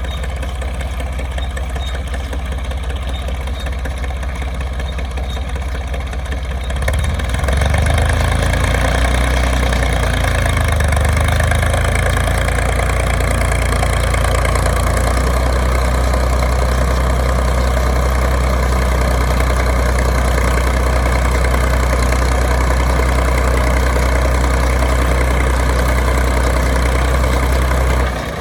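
Tractor engine running steadily; about seven seconds in it grows louder and fuller, wavers briefly, then holds at the higher level.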